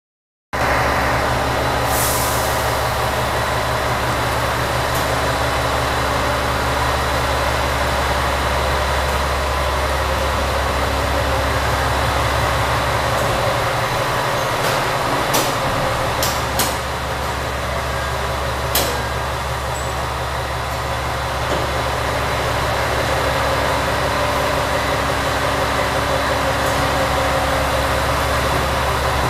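A train standing at a station platform, idling with a steady low engine drone. Its low hum drops away briefly about halfway through, and a few sharp clicks come soon after.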